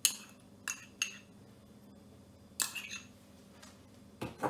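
A spoon clinking against a small ceramic ramekin and a stainless steel mixing bowl while spooning out garlic powder: five short sharp clinks, spaced out, the loudest at the start.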